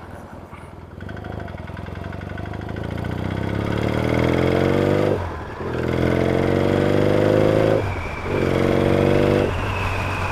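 Yamaha XS650 parallel-twin engine pulling hard through the gears: three rising runs of engine note, each broken by a short dip at a gear change, then running on more steadily.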